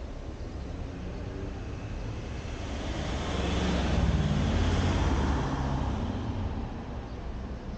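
An SUV drives past close by. Its engine and tyre noise swells to a peak about four to five seconds in and then fades, over a steady low rumble.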